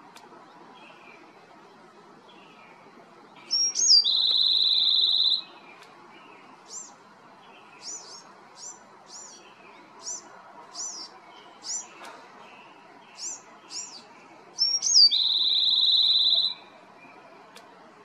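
Bewick's wren singing twice, each song a few sharp, high opening notes running into a fast trill that lasts over a second. Between the two songs comes a spaced series of short, high, down-slurred notes.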